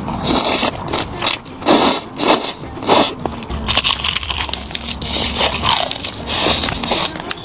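Close-miked eating: bites and chewing, with irregular crunching and crackling.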